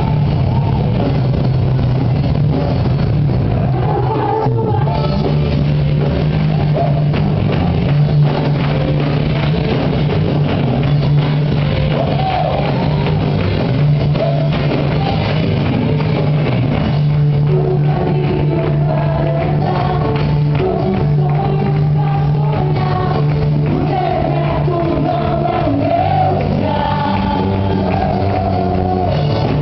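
Christian worship song played by a band with drums and bass, with a group of voices singing the melody.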